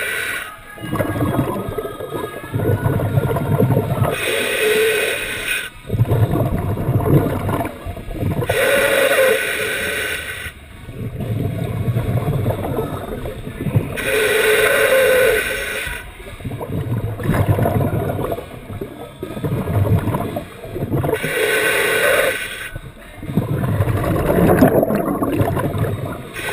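Scuba diver breathing through a regulator underwater. Four hissing inhales come about every four to six seconds, each followed by a longer gurgling stream of exhaled bubbles.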